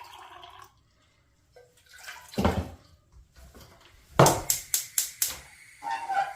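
Half a glass of water being poured into a saucepan, ending within the first second. About two and a half seconds in comes a single knock, and about four seconds in a quick run of sharp clicks.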